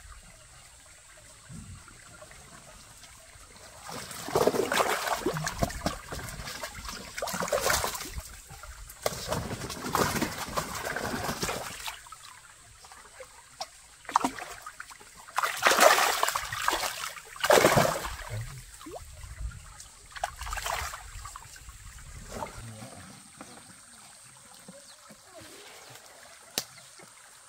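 Hands splashing in shallow water while catching fish by hand, in several irregular bursts, with quieter trickling water between them.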